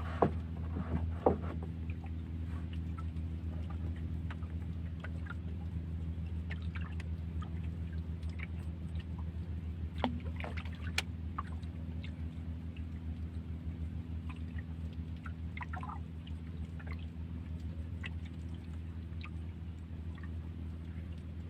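A small boat's engine running steadily at low speed, with water gurgling alongside. Two sharp knocks come in the first second and a half, and a few fainter clicks come later.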